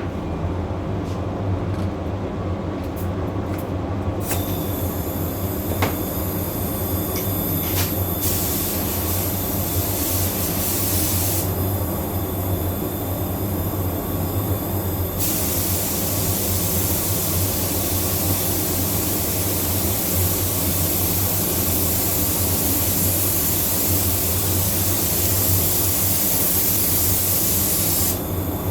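Paint spray gun hissing as a coat of dark red candy tint is sprayed. The hiss starts about four seconds in, eases for a few seconds midway, then runs steadily until it cuts off near the end, over a steady low hum.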